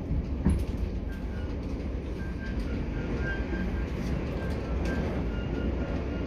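Interior running noise of a Networker electric multiple unit travelling at speed: a steady low rumble of wheels on track, with one sharp knock about half a second in and faint short squeaks over it.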